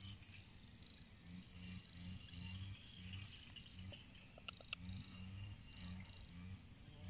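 A chorus of frogs calling from a flooded field, a low croak repeated over and over, with insects chirping faintly and steadily above it. Two sharp clicks come about four and a half seconds in.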